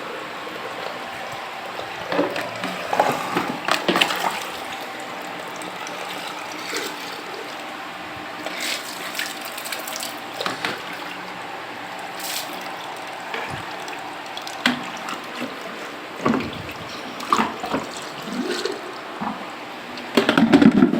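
Water running and splashing as a parrot cage is washed, with scattered knocks and clatters, the busiest near the start and just before the end.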